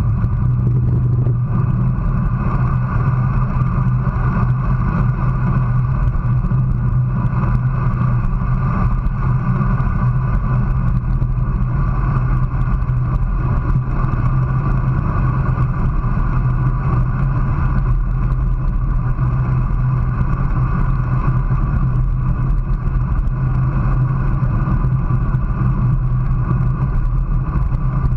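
Steady wind rush over the camera microphone with tyre noise from a road bicycle moving at about 25 to 29 mph, over a constant low hum.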